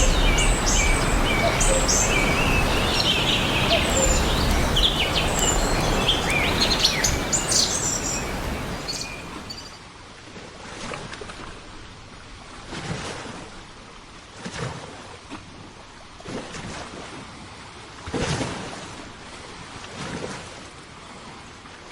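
Many small birds chirping over a loud, steady rushing noise. About halfway through this cuts to a quieter scene of soft water washes repeating about every two seconds, like small waves lapping.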